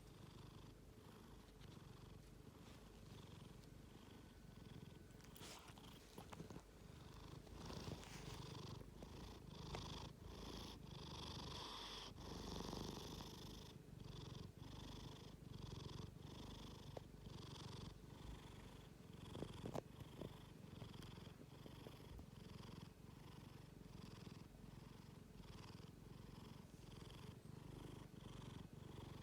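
A sleeping pet snoring softly, in an even rhythm of breaths.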